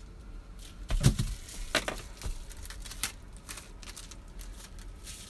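Scattered clicks and crinkling rustles from handling, with one dull thump about a second in.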